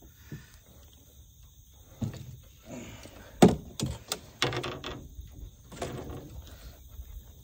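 Scattered knocks and rattles as a crappie is lifted into a canoe on a jig pole and handled for unhooking, the sharpest knock about three and a half seconds in, with a quick run of clatter just after.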